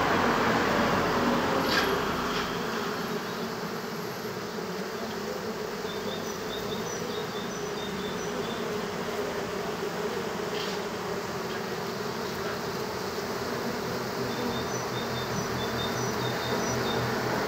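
Steady hum of many honey bees buzzing around and on the front of a wooden hive.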